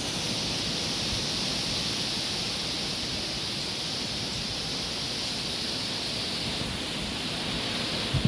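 Very strong wind blowing with a steady hiss.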